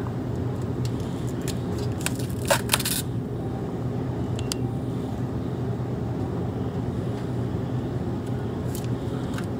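Steady low hum of a refrigerated meat display case, with a short cluster of sharp clicks and crinkles about two to three seconds in and another click a little later.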